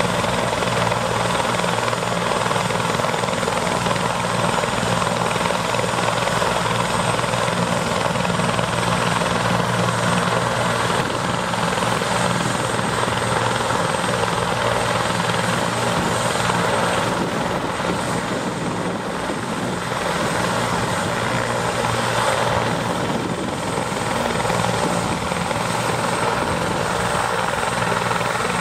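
Medical helicopter running on the ground with its rotor turning: a steady high turbine whine over a low rotor hum.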